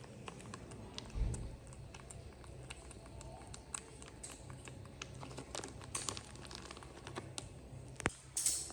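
Scattered light clicks and crinkling, as of something small being picked at and handled, with a soft low thump about a second in and a sharper click followed by a brief hiss near the end.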